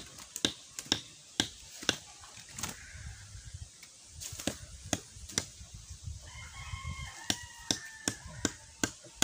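A rooster crowing: one long crow starting about six seconds in. It sits among a string of sharp clicks and taps, which are the loudest sounds.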